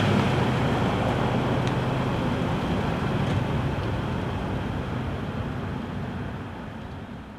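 A vehicle running with steady engine and road noise, fading out gradually over the last few seconds.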